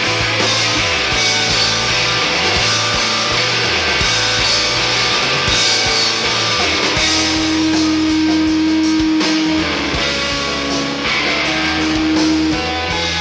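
Guitar-driven rock song played from a 45 rpm vinyl record, with a moving bass line under dense guitar. About halfway through, a note is held for several seconds.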